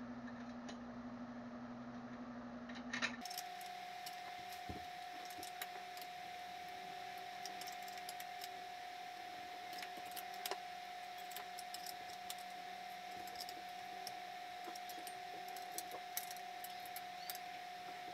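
Scattered light metallic clinks and clicks of steel sit-up bench parts, bolts and tools being handled during assembly. A steady background hum runs underneath and jumps to a higher tone about three seconds in.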